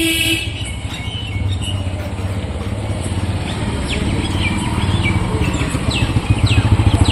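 A motor vehicle's engine running with a low, even pulse that grows louder toward the end, and a few short high chirps about four to six seconds in.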